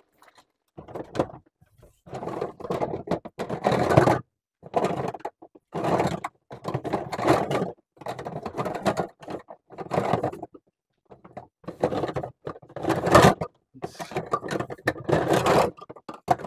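Someone rummaging through plumbing parts in a truck, with irregular bursts of rattling and scraping as things are moved and pushed aside.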